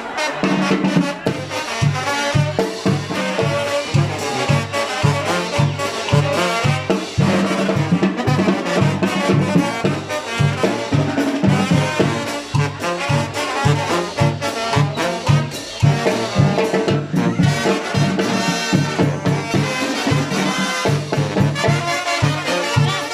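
Brass band playing upbeat music: trumpets and trombones over drums, with a steady repeating bass line.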